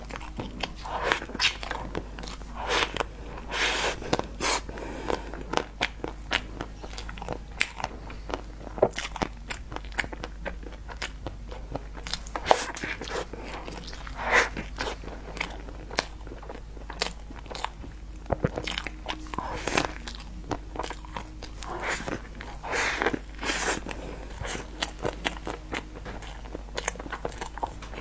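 A person biting into and chewing a chocolate-coated, cream-filled dessert, picked up close by a clip-on microphone: repeated crunchy bites and chewing with scattered small clicks throughout.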